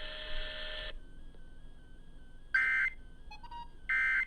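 Two short screeching digital data bursts, about 1.4 s apart, of the Emergency Alert System's SAME end-of-message code, which closes the weather radio warning. Before them, a steady hiss cuts off about a second in.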